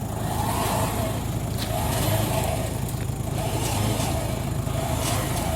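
Motor-driven winch pulling a concrete slab, its engine running steadily under load, with a mid-pitched tone that swells and falls about every one and a half seconds.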